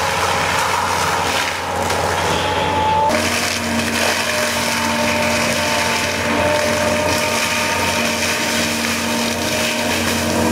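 Heavy land-clearing machine running hard while grinding through wood, a steady loud drone with held engine tones. The sound shifts abruptly about three seconds in.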